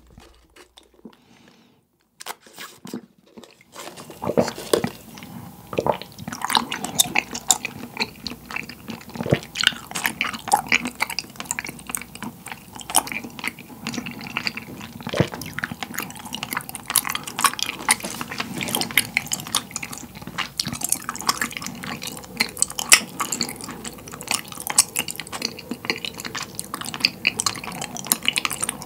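Close-miked chewing of a mouthful of bubble tea pearls, tapioca and coconut jelly: a dense run of wet clicking mouth sounds that starts about four seconds in, after a faint sip through a straw.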